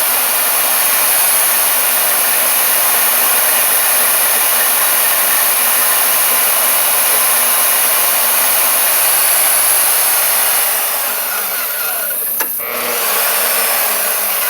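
Portable band saw running and cutting stock: a steady, loud, noisy whir with a thin high whine over it. About eleven seconds in the sound eases a little, and a sharp click comes a moment later.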